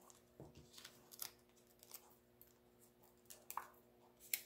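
Faint, scattered rustles and small ticks of paper and cardstock being handled on a tabletop as small foam adhesive dimensionals are put on and pressed down, with one sharper tick near the end.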